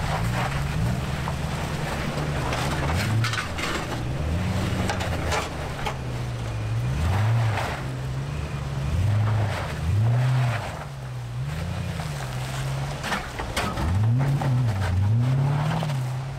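Toyota LandCruiser 200 Series petrol V8 engine working under load as it climbs a rock ledge off-road. The revs rise and fall again and again as the throttle is fed on and eased off.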